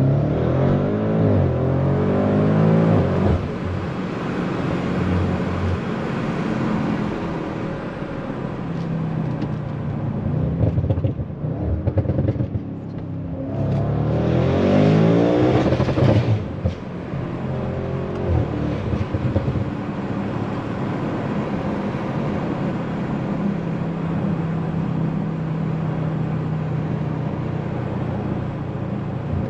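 Tuned twin-turbo 4.0-litre V8 of an Audi RS7 C8 pulling hard with rising revs at the start, easing off about eleven seconds in, pulling hard again with rising revs around the middle, then running steadily at cruise.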